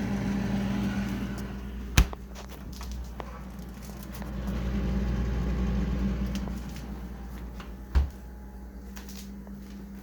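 Frigidaire refrigerator running: a steady low compressor hum that swells louder for a couple of seconds midway. Two sharp knocks stand out, about six seconds apart.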